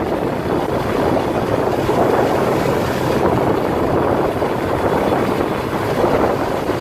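UTV engine running steadily while driving, with wind rushing over the microphone.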